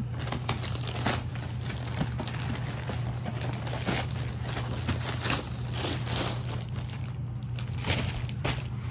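A plastic poly mailer bag being torn open and crumpled by hand: an irregular run of crinkles, crackles and rustles. Near the end a cardboard box is handled. A steady low hum runs underneath.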